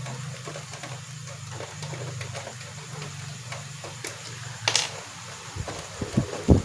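Small clicks and handling noises of a projector being taken apart, over a steady low hum, with one brief hissing scrape a little before the end.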